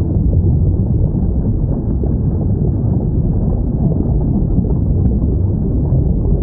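Underwater recording of whale calls: faint rising and falling glides over a steady low rumble.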